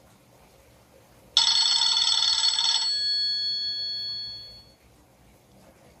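A short stock alert tone from a Nokia 2680 slide's loudspeaker, starting about a second and a half in. It is a loud, bright burst of many high tones for about a second and a half, then a few held high notes that fade out about five seconds in.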